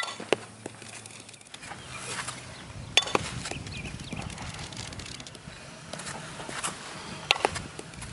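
Softball bat hitting softballs in batting practice: three sharp cracks of contact, one at the start, one about three seconds in and one near the end, with fainter knocks between.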